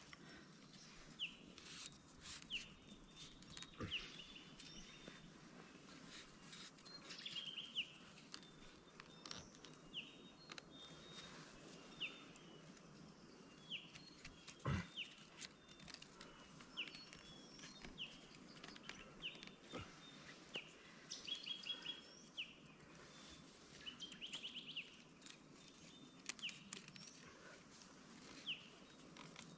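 Faint birds chirping, short quick falling calls repeating every second or two, with occasional light clicks and knocks of dry twigs being handled, one louder knock about halfway through.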